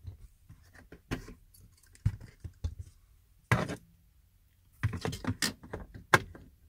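Handling noise of a K+DCAN diagnostic cable: scattered plastic knocks and rustles as the cable is moved about, then a cluster of clicks and a sharp click just after six seconds in as its connector is pushed into a BMW E90's OBD2 port under the dashboard.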